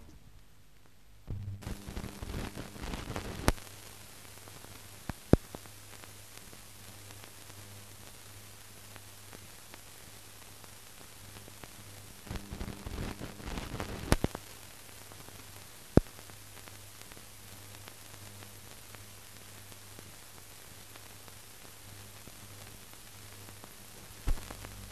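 Surface noise of an old film soundtrack running between music: a steady hiss and low hum, with patches of crackle and a handful of sharp clicks and pops.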